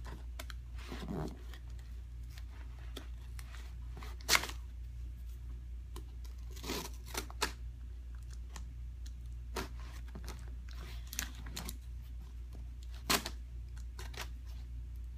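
A shipping box being opened by hand: irregular tearing and scraping of tape and cardboard, with crinkling, and a few sharper rips about four seconds in and near the end. A steady low hum runs underneath.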